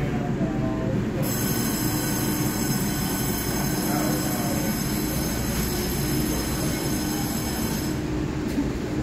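EMU3000 electric multiple-unit train braking to a stop at the platform: a low running rumble with a steady, high-pitched squeal that sets in about a second in and cuts off suddenly near the end as the train halts.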